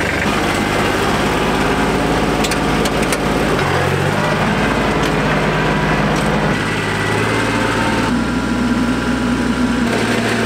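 Compact tractor engine running under load while driving a rear-mounted PTO rototiller through the soil. Its pitch steps up and down a few times.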